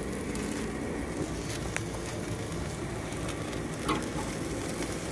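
Steady sizzle and crackle of a ribeye steak and soaked whiskey wood chips over a mesquite charcoal fire, with scattered small pops and a short louder burst about four seconds in.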